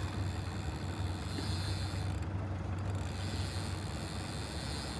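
Small boat's outboard motor running at low speed, a steady low drone under a faint hiss.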